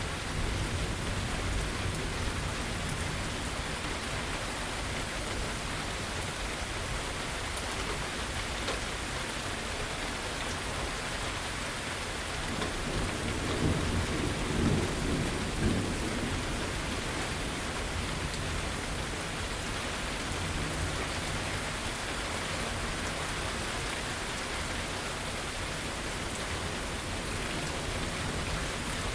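Steady heavy rain falling, with low thunder rumbling under it near the start and swelling louder in the middle.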